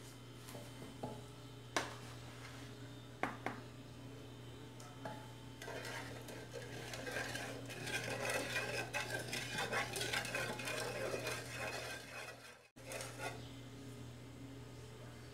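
Wooden spoon knocking a few times against a nonstick saucepan as sugar is added, then stirring and scraping coconut milk and sugar around the pan for several seconds, which stops abruptly near the end.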